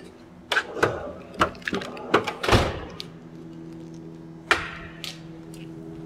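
Clicks and knocks of scope test leads and connectors being handled and plugged in, a pulse sensor lead going into the scope's channel C, with a heavier thunk about two and a half seconds in and another about four and a half seconds in. A faint steady low hum starts about three seconds in.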